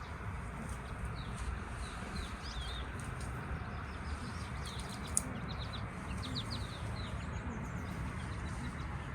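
Small birds chirping in short high trills on and off, over a steady background hiss, with one sharp click about five seconds in.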